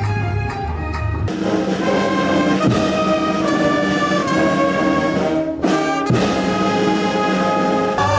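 Ceremonial brass band playing long held chords, pausing briefly about five and a half seconds in. For the first second or so, different music with a steady low bass is heard before the brass comes in.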